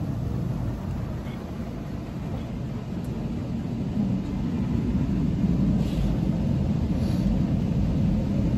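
Automatic car wash working over the car, heard from inside the cabin as a steady low rumble of spray and machinery that grows louder about four seconds in.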